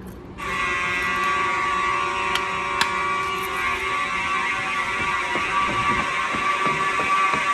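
Simplex 4903 fire alarm horn strobes come on about half a second in and sound continuously: one loud, steady horn tone with no pauses. This is a continuous alarm signal rather than the temporal code-3 pattern.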